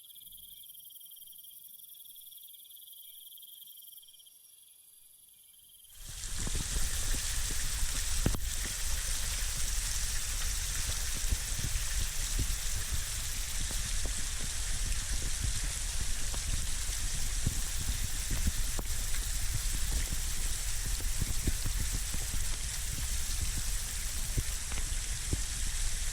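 Crickets chirping faintly, then about six seconds in an abrupt change to the loud, steady rush of a waterfall, which continues with a deep rumble underneath.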